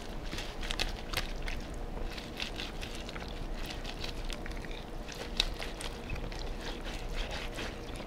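Bare hands squishing and rubbing wet seasoning into raw fish pieces in a plastic bowl, marinating the fish: irregular wet smacks and small clicks.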